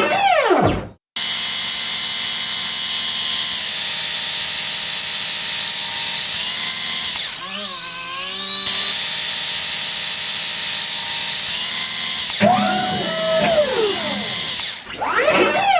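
A run of robot and machinery sound effects: a short whine sweeping down in pitch, then a long steady motorised whir like a power drill, its pitch wavering briefly partway through. Near the end come several whines that rise and fall in pitch, and a last falling sweep.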